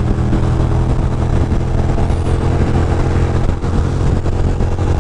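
Ducati Monster 620's air-cooled L-twin engine running at a steady pace while the motorcycle cruises at speed.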